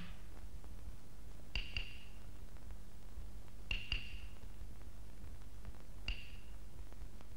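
Small high metallic pings of a light struck percussion instrument, each ringing briefly: two quick pairs and then a single strike, about two seconds apart, over a steady low hum of the old soundtrack.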